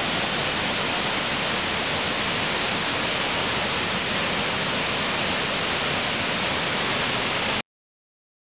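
Cascading waterfall: a steady, even rush of falling water that cuts off abruptly near the end.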